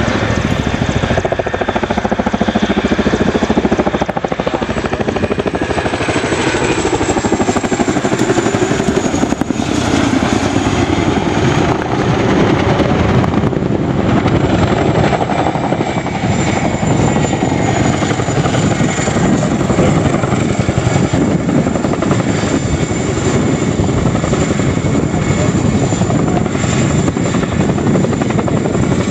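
Boeing CH-47 Chinook tandem-rotor helicopter flying past close by, its rotors and twin turboshaft engines making a loud continuous noise with a high, steady turbine whine over it.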